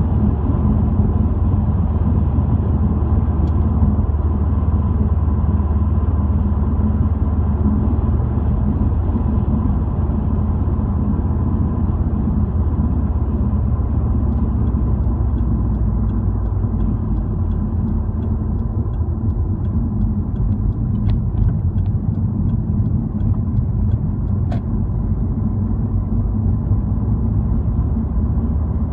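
Car driving at road speed, heard from inside the cabin: a steady low rumble of engine and tyre noise. A faint regular ticking comes in for about ten seconds in the middle.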